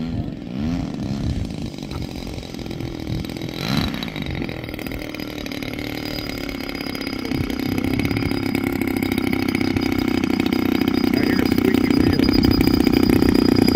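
Engine of a Factor 3D radio-controlled aerobatic model airplane running at low throttle as the plane rolls out and taxis on the runway, its pitch wavering at first and then settling into a steady note. It grows louder from about halfway through as the plane comes closer.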